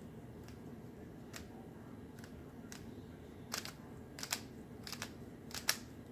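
Rubik's Cube layers being flicked one-handed with the fingers, clicking as they turn: a few faint clicks at first, then from about halfway a run of louder, sharper clacks, often two close together.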